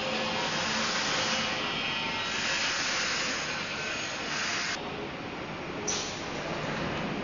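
Automatic frame press working: a surging hiss over a faint machine hum. The hiss cuts off abruptly a little past halfway, and a short sharp hiss follows about a second later.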